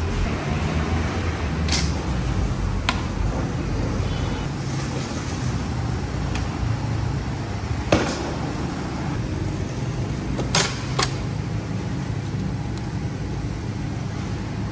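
Steady low rumble of road traffic, with a few short sharp knocks; the loudest comes about eight seconds in and two close together a little after ten seconds.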